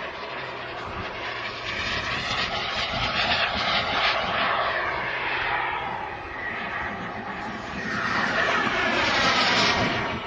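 Small gas-turbine engine of a Reaction 54 radio-controlled model jet in flight: a steady jet roar and whine that swells twice as the model passes, its pitch falling as it goes by near the end.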